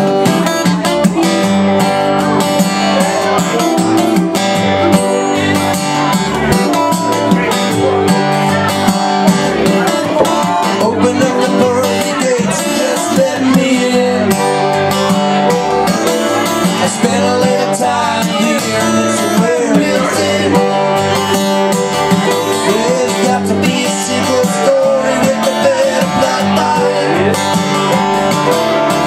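Small acoustic band playing a country-style song, acoustic guitars strumming with a fiddle playing along.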